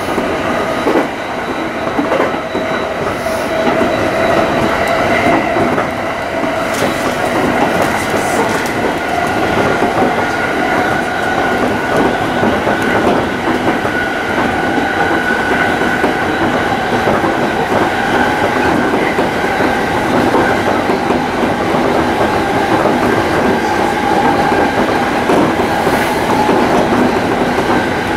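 JR East E231 series electric commuter train running along the line at speed, heard from inside the front car: a steady rumbling running noise with faint steady whining tones over it.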